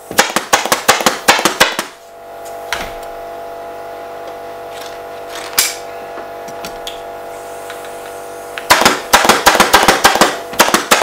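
Pneumatic upholstery staple gun firing in quick runs, driving staples through seat webbing into a wooden chair frame: a rapid string of sharp shots at the start, a few single shots, and another fast run near the end. Between the runs a steady hum with a few held tones.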